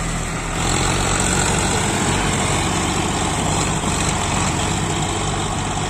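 Tractor diesel engines labouring under load as one tractor on cage wheels tows another that is stuck deep in paddy mud. The engine sound gets louder and fuller about half a second in, then runs on steadily.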